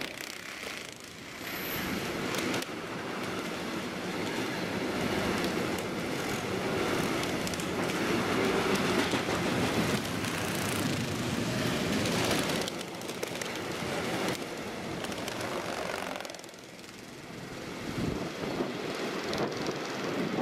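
Intermodal freight train carrying road semi-trailers rolling past at speed: a steady rush of wheels on rail and wagon noise. It dips briefly about a second in and again about three-quarters of the way through.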